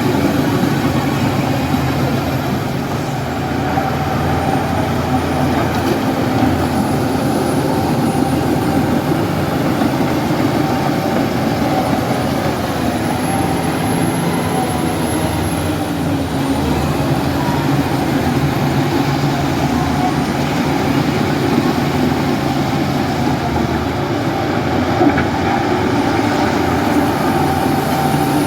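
Heavy diesel engine of a Shantui D17P bulldozer running steadily at working revs, its pitch shifting slightly now and then.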